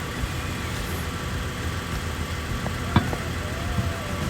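A motor vehicle's engine running steadily with a low rumble, with a single sharp knock about three seconds in.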